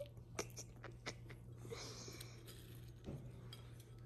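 A small dog chewing a treat: faint, scattered crunchy clicks with a soft rustle about two seconds in.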